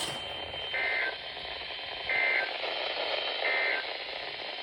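Emergency Alert System end-of-message data bursts: three short, identical two-tone digital buzzes about a second and a half apart, over steady radio hiss. They signal the end of the severe thunderstorm warning broadcast.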